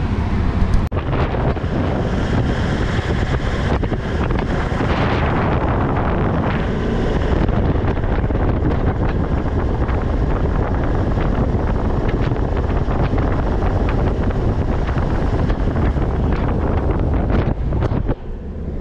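Wind rushing over the microphone of a moving four-wheel drive, over the steady drone of the Toyota LandCruiser's engine and its tyres on sand as it tows a caravan along the beach.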